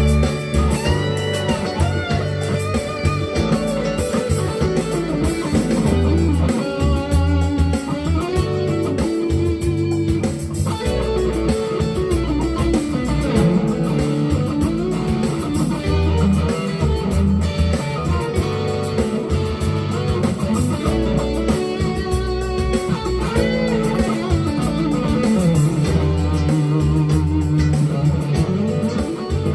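GEARIT GST 100 Strat-copy electric guitar playing melodic lead lines with string bends over sustained low bass notes and a light percussive backing.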